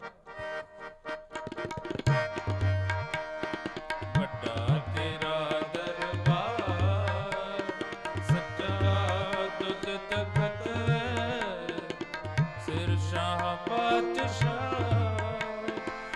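Tabla and harmonium playing an instrumental passage of kirtan. The tabla's deep bass strokes and sharp treble strokes run over sustained harmonium tones. The playing is soft at first, and the tabla comes in strongly about two seconds in.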